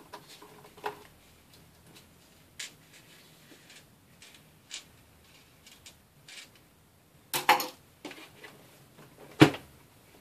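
Small clicks and taps of a screwdriver and loose screws on a tabletop as the hinge screws come out of a laptop, then a short clatter about seven seconds in and one sharp knock of the plastic laptop case near the end as the laptop is picked up and turned over.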